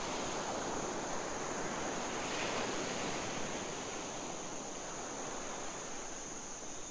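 Steady rushing ambience, like wind or distant surf, with a thin, high, steady tone held above it.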